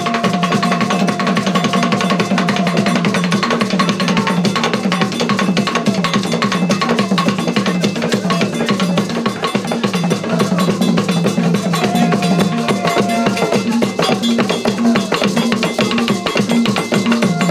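Afro-Surinamese Creole ceremonial drumming: fast, dense percussion played without a break.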